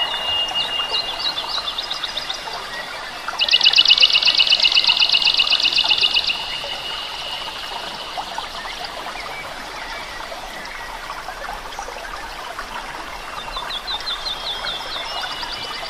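Tropical forest wildlife calling: repeated high chirps over a steady high whine, with a loud, fast, evenly pulsed trill from about three and a half to six seconds in.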